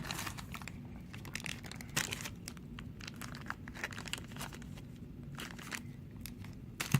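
Packaging being handled as parts are taken out of the box: irregular crinkling and rustling with small clicks and taps.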